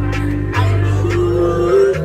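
Background music with a heavy, steady bass line and a vocal line over it.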